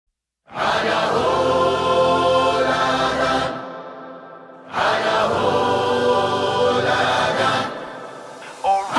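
Music intro: two long held chords with a choral, chant-like sound. The first comes in about half a second in and fades out, the second swells in near five seconds, and a short rising phrase follows near the end.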